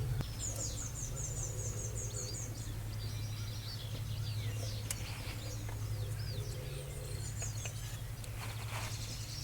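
Small birds singing in the background, with fast repeated high chirping trills and scattered short calls over a steady low hum. There is one faint click about five seconds in.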